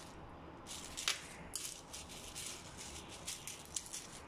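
Metal chopsticks stirring and picking at cornflakes in milk in a ceramic bowl: irregular crackly rustling of the flakes, with a sharp click of the chopsticks against the bowl about a second in.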